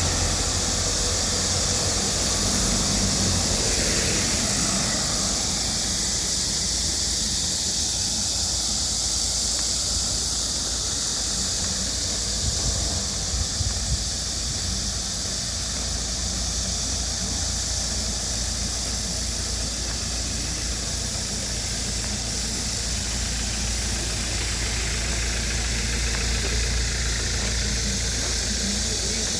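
Steady low engine-like rumble under a constant high hiss.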